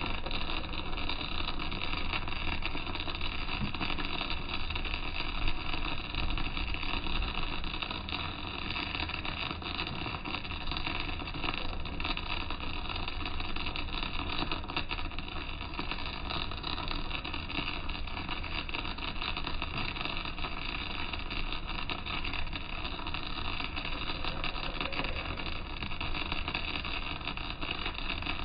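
Electric arc welding a vertical-down (3G downhill) seam on a steel tank wall: the arc's steady crackle and hiss runs without a break. There is one brief louder pop about five seconds in.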